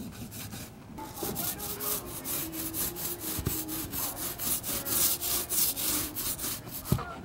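Paint roller rolling fresh paint across a boat deck in quick back-and-forth strokes, several a second. A single sharp knock comes near the end.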